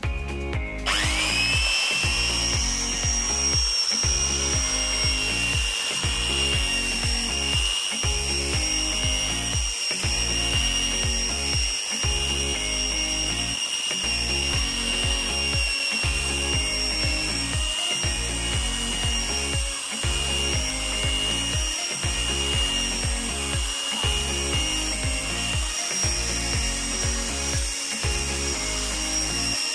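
Electric drill with a paddle mixer blending a pot of thick harees porridge: a steady motor whine that rises as the drill gets up to speed right at the start, then holds. Background music with a steady beat plays underneath.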